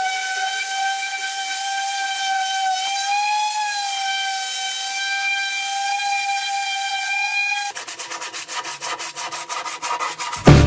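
Random orbital sander running on an oak board, a steady high whine with a slight wobble in pitch. About eight seconds in it stops and gives way to quick rhythmic rubbing, about seven strokes a second, of sandpaper worked by hand. A loud music beat cuts in at the very end.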